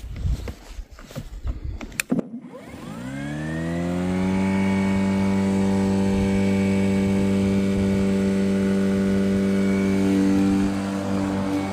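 Parkside PRMA 40-Li B3 cordless lawn mower's brushless electric motor and blade: a few clicks and knocks, a sharp click about two seconds in, then the motor spins up with a rising whine over about a second and a half and settles into a steady hum.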